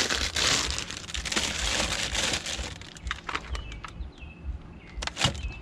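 Rustling, crinkling handling noise for about the first three seconds, then scattered light clicks and a sharp knock about five seconds in.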